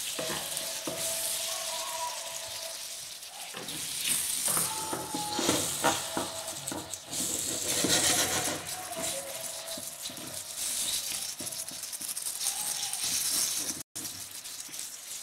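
Fresh minced meat sizzling in a stone-coated frying pan as it starts to brown, stirred and broken up with a wooden spoon. The spoon scrapes and knocks against the pan now and then, most often in the middle stretch.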